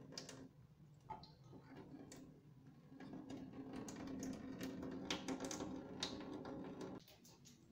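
Small wire-mesh sieve shaken and tapped over a glass bowl: a run of quick, light clicks and rattles, over a low steady hum that cuts off abruptly near the end.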